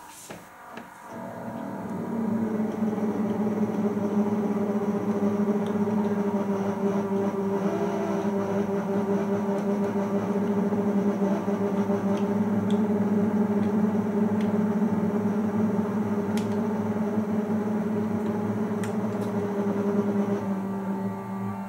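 Small electric motor and gearing of a model shunting tractor's drive carriage running steadily, a hum that rises about two seconds in and drops away near the end, with a few faint clicks.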